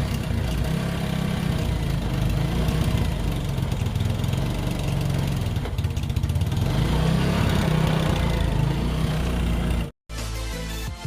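Yamaha Sight's single-cylinder four-stroke engine running steadily at idle just after being kick-started, which shows the newly fitted fuel pump is delivering fuel. About ten seconds in, it cuts off suddenly and music begins.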